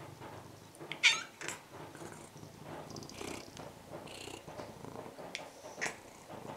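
Orange-and-white house cat giving one loud meow about a second in, then purring as it presses up close, with a short sharp sound near the end.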